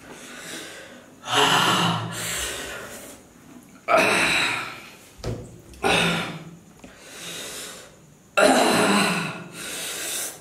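A man gasping and breathing hard through his mouth, four loud sharp breaths a few seconds apart, each fading away, with fainter breaths between: his reaction to the burn of an extremely hot chili chip.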